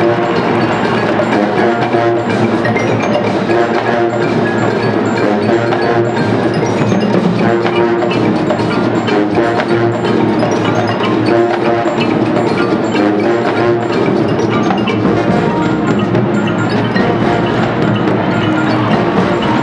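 College marching band playing a percussion-led number, with a dense, steady beat of drum strikes and ringing pitched tones.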